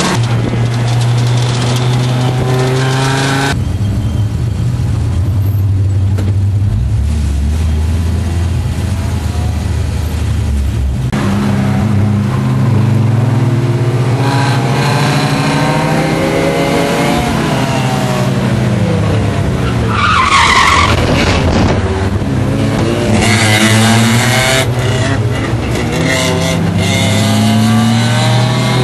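Audi race car's engine heard from inside the cabin at racing speed, its pitch rising and falling with throttle and gear changes and sitting low and steady for several seconds early on. A brief tire squeal comes about twenty seconds in.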